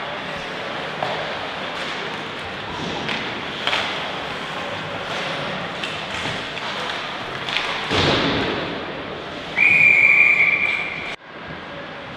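Ice hockey rink noise with scattered sharp knocks of sticks and puck, then one long blast of a referee's whistle, about a second and a half, near the end, stopping play.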